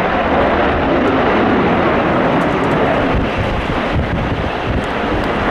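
CF-18 Hornet's twin GE F404 turbofan engines giving a steady jet rumble as it flies past, easing slightly past the middle, with wind buffeting the microphone.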